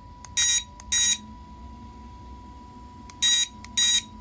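A treadmill control board's buzzer beeps four times, in two quick pairs, as the remote's buttons are pressed. Each beep is short, loud and harsh, with an overdriven, buzzy vibration like a speaker pushed too hard, which is the fault being fixed.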